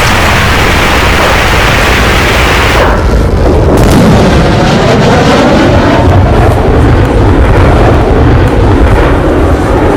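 Loud explosion sound effects: a hissing blast for about the first three seconds, then a deep, churning rumble.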